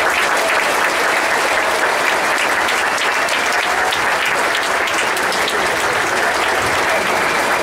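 A large audience applauding, steady and unbroken.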